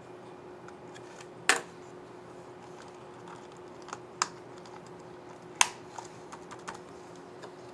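Clicks from a keycap on an HP Spectre 14 laptop keyboard's scissor mechanism as the key is pressed and snapped into place: three loud sharp clicks and several lighter ones, with a faint steady hum underneath.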